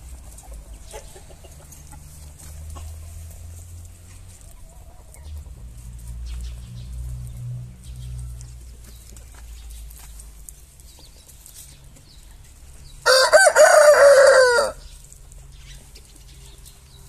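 An Aseel rooster crows once, loud and fairly short, about thirteen seconds in. Before it there is faint clucking over a low rumble.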